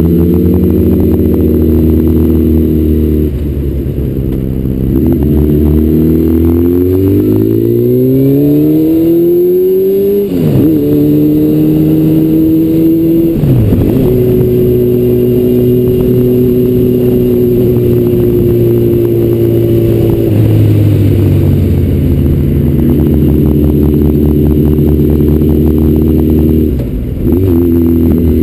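Honda CBR900RR Fireblade's inline-four engine heard from on the bike while riding: the revs climb steadily for several seconds, drop sharply twice at gear changes, then hold a steady cruise, with a short dip in revs near the end.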